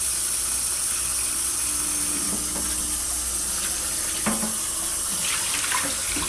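Kitchen faucet running steadily into a nonstick frying pan held in a stainless steel sink, water splashing as a hand rinses and rubs the pan; the flow cuts off at the very end.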